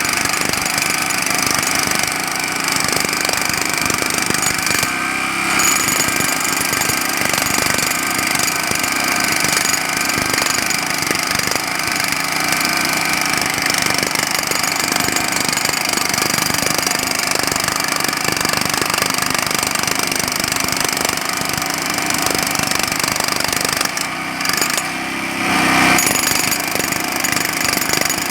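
Jackhammer hammering continuously in rapid, even blows, with a brief drop about 24 seconds in and a louder stretch just after.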